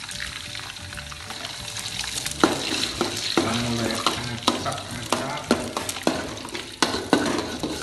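Eggs sizzling in hot oil in a metal wok, the hiss running throughout. From about two and a half seconds in, a metal spatula repeatedly scrapes and knocks against the wok as the eggs are broken up and scrambled.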